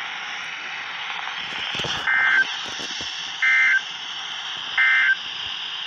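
Emergency Alert System SAME digital data bursts: three short, identical buzzy two-tone bursts about 1.3 seconds apart over steady radio hiss. Their shortness fits the end-of-message code sent after a severe thunderstorm warning.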